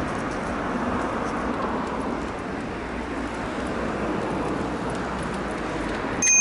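Steady outdoor background noise, like distant road traffic, with no distinct events. Near the end it is cut into by a sudden, loud, high-pitched beep.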